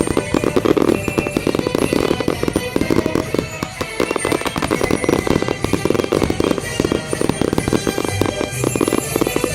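Fireworks going off in rapid succession, a dense run of pops and crackles with no let-up, over music played for the show.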